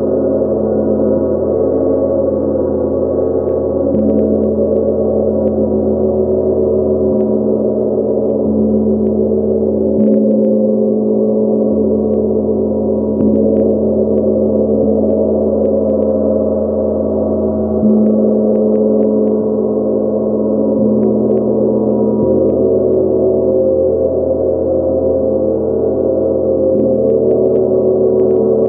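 A 70 cm Nepalese gong played with a felt mallet, kept ringing by soft strokes every few seconds. It sounds as one low, dense wash of many overlapping tones that never dies away.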